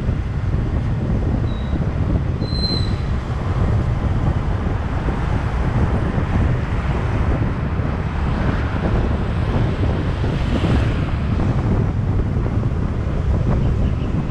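Wind buffeting the microphone over steady road and traffic noise from a vehicle moving along a road.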